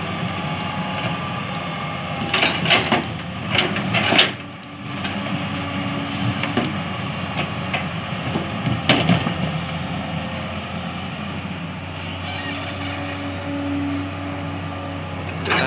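Komatsu hydraulic excavator's diesel engine running steadily under work. The steel bucket scrapes and knocks against rock several times about two to four seconds in, and once more near nine seconds.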